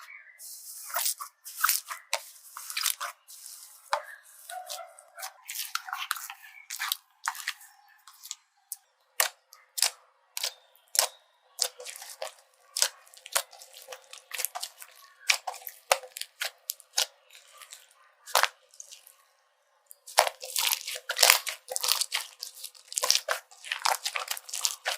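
Slime being pressed and stretched by hand: a run of sticky pops and crackling clicks, thickest in the last few seconds.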